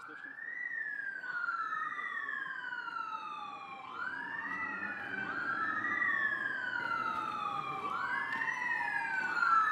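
Two emergency vehicle sirens sounding together and out of step. Each one sweeps up quickly, then glides slowly down, and repeats about every two and a half seconds.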